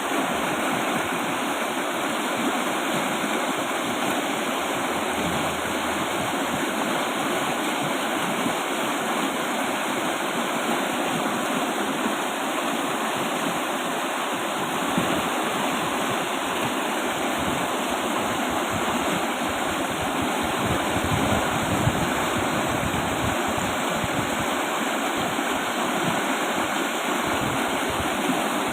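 River with a strong flow rushing steadily over its bed, a constant full wash of water noise.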